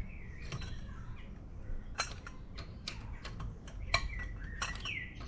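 Breaker bar and socket clinking on a car wheel's lug nuts by hand, a few sharp metallic clinks, the loudest about two and four seconds in. Birds chirp in the background.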